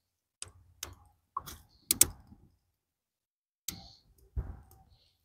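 Dry sticks clicking and knocking as they are picked from a pile and laid on a small twig fire: about seven sharp, separate clicks spread out with gaps, the loudest about two seconds in.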